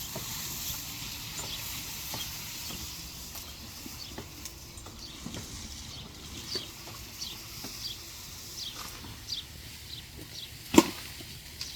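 Scattered light clicks and knocks over a faint hiss, with one sharp, loud knock near the end.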